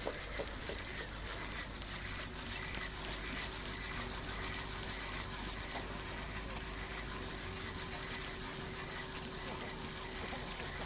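A distant engine humming steadily at one pitch over a soft background hiss, the hum starting about a second and a half in.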